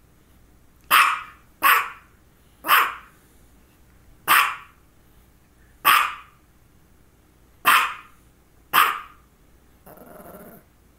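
Small white long-haired dog barking: seven short, loud barks at uneven gaps of about one to one and a half seconds, followed near the end by a softer, rougher sound.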